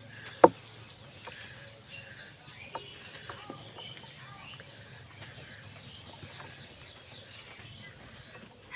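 Chickens clucking with small birds chirping in the background. A single sharp crack about half a second in is the loudest sound, followed by a few lighter clicks.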